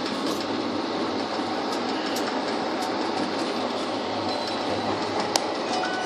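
Steady running noise of an express train heard from inside a moving carriage: wheels rumbling on the track with a constant rush. A single sharp click sounds a little past five seconds.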